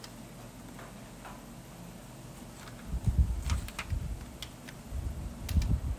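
Green coloured pencil working on paper laid on a desk: light ticks and scratches at first, then from about halfway runs of quick low thuds and scratches as the strokes press against the tabletop.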